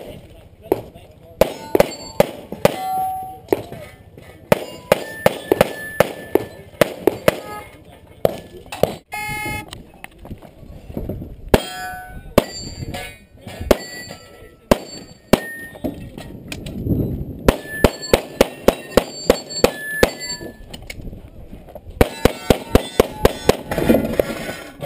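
Handgun fire in rapid strings of shots, about four a second at the fastest, broken by short pauses. Many shots are followed by a brief metallic ring, typical of steel targets being hit.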